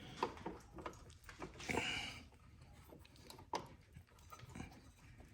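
Light clicks and knocks of tools and suspension parts being handled, with a heavy breath about two seconds in.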